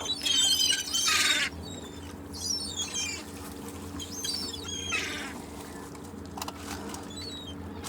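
Seagulls calling with harsh, squawking cries: a loud burst of calls in the first second and a half, a few more around the middle, then fainter, over a steady low background noise.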